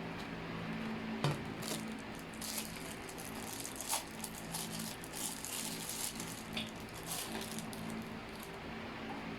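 Small plastic nebulizer parts being handled and fitted together: scattered clicks, taps and rattles, the sharpest about a second in and near four seconds, over a low steady hum.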